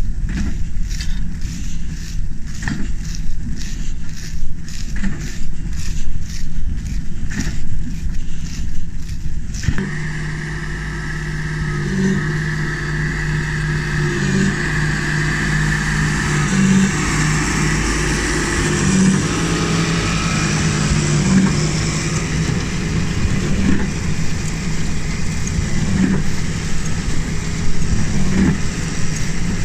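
New Holland 4900 large square baler working wheat straw, knocking regularly about once a second under a steady machinery rumble. About ten seconds in, the sound changes to the pulling John Deere 8530 tractor's engine running steadily under load, with a higher whirr from the baler's drive.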